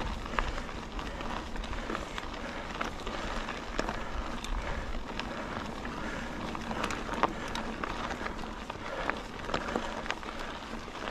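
Mountain bike climbing a gravel and dirt trail: steady crunch of tyres on gravel with a low rumble underneath and many small scattered clicks and ticks from stones and the bike's rattle.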